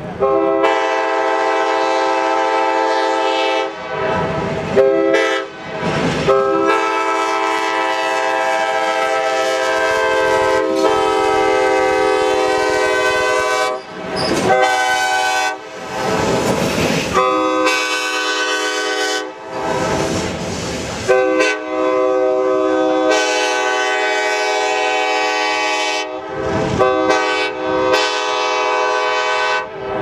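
Nathan K-5LAR24 five-chime locomotive air horn blowing a chord of several notes in a series of long and short blasts with brief gaps. The train's wheels clatter on the rails as the locomotive passes.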